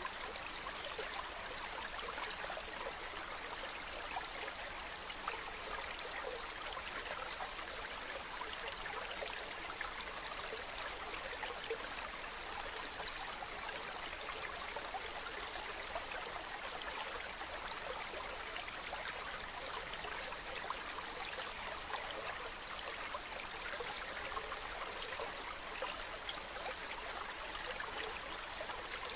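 A stream running steadily over rocks, a continuous babble of water with many small splashes and no birdsong.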